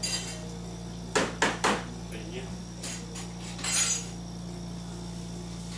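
Three quick, sharp clinks a little over a second in, then a few fainter clicks and a brief rustle near four seconds, over a steady low hum.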